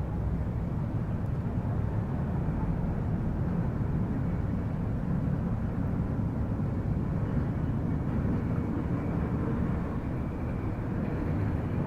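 Toyota 2JZ-GE 3.0-litre DOHC VVT-i inline-six engine running steadily.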